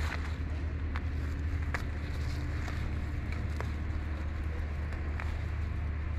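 Steady low rumble of distant traffic with a faint engine tone, and a few light clicks of leaves and stems being handled.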